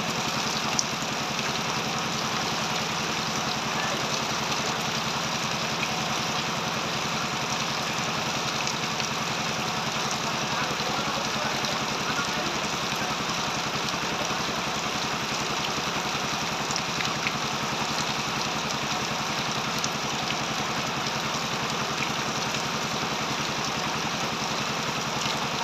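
Heavy rain pouring steadily, with an engine idling underneath in a fast, even low beat.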